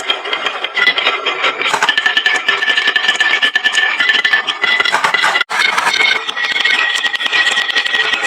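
Many glass marbles clattering and rolling down a HABA wooden marble-run slope: a dense, continuous rattle of small clicks with a faint ringing. The sound cuts out for an instant about five and a half seconds in.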